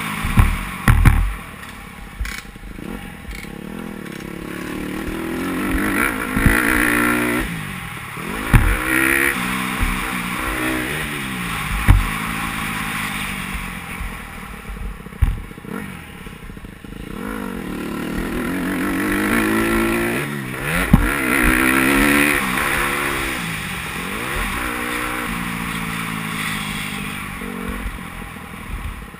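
Dirt bike engine ridden hard around a motocross track, revving up and falling off again and again as the rider works the throttle through turns and straights. Several sharp low thumps are heard along the way.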